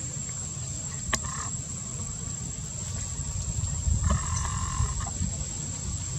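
Baby macaque crying: a short whining cry about a second in and a longer one, just under a second, about four seconds in, over a steady low rumble and a thin, steady high whine.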